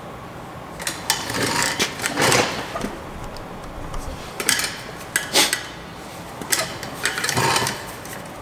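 A cloth rag damp with reducer wiping and rustling over a painted plastic grill, rubbing blue paint off its raised surfaces in irregular scrubbing strokes, with small clicks of handling.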